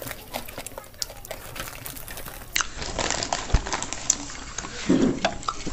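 Close-up eating sounds: chewing, with many small clicks and crinkles from handling spicy noodles and chicken with gloved hands.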